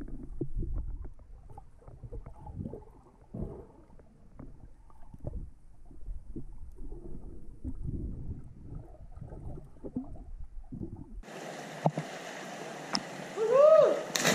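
Muffled underwater sound from a submerged camera during snorkelling: low, irregular sloshing and knocking of moving water. About eleven seconds in it cuts to open air over the pool, with a steady hiss of water and a person's rising-and-falling shout near the end, the loudest moment.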